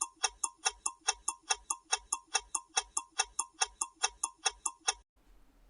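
Ticking clock sound effect: a fast, even tick-tock of about four ticks a second that stops abruptly near the end.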